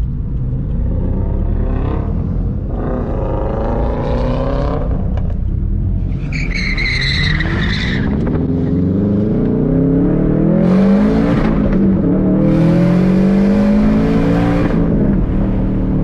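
Subaru WRX STI's turbocharged flat-four with the boxer rumble, revving and pulling, its pitch rising and falling several times. A high whistle comes in about six to eight seconds in, and there are bursts of hiss from the external wastegate near the end.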